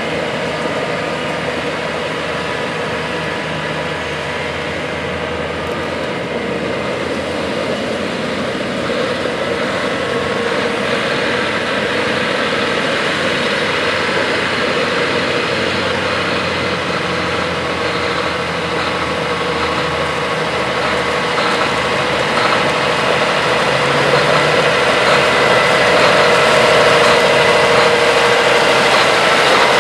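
John Deere 8RX 370 four-track tractor driving over gravel: its diesel engine running steadily, with its rubber tracks rolling on the gravel. The sound grows louder near the end as the tractor comes closer.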